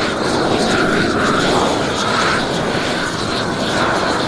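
Hose-fed roofing torch burning with a steady, loud roar while its flame heats the underside of a torch-down roll roofing membrane as it is unrolled, melting the plastic film and the bitumen so the roll bonds.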